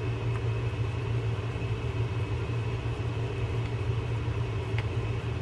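Steady low mechanical hum with a faint high whine above it, unchanging throughout, and a small click about five seconds in.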